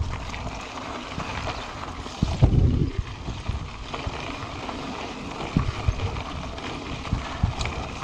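Mountain bike rolling fast over a dirt and gravel track. The tyres crunch and the bike clatters with frequent knocks and clicks from a fault, which the rider says has made it rattle like a 'carraca'. Wind buffets the microphone, loudest about two and a half seconds in.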